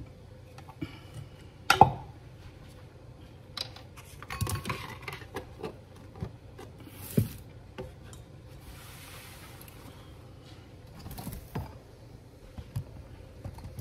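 Kitchen handling sounds: stainless steel pot and utensils knocking and clinking, with one sharp knock near the start and a cluster of clatter a few seconds later. Short soft hisses come and go in the middle.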